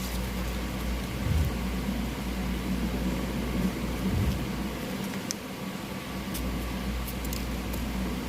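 Steady low mechanical hum, like a fan or air conditioner, with two soft low thumps and a few faint ticks.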